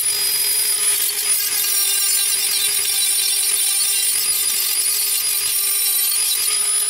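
Dremel rotary tool with a sanding drum running at a steady high whine, grinding along the inside edge of a roughly 3-inch hole cut in sheet metal, with a continuous abrasive hiss: the edge is being sanded round to the drawn line.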